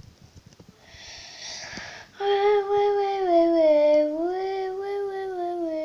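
A boy singing one long held note, its pitch dipping in the middle, rising back, then sliding down near the end. A short breathy hiss comes before it, about a second in.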